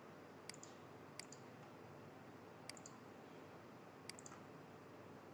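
Four faint computer mouse clicks over near-silent room tone, each a quick double click, about a second or so apart.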